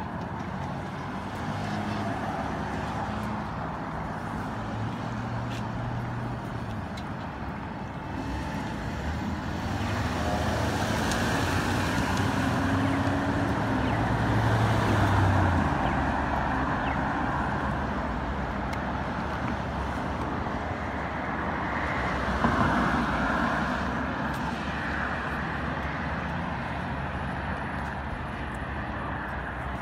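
Road traffic passing on a busy street: a steady wash of tyre and engine noise, with vehicles swelling past, loudest a little past halfway through and again briefly a few seconds later.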